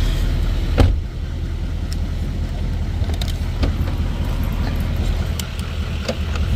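Pickup truck engine idling with a steady low rumble. A single knock comes about a second in, and a few light clicks follow later.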